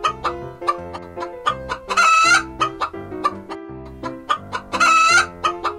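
Chicken calling twice, about three seconds apart, each call about half a second long, over light background music with a steady plucked rhythm.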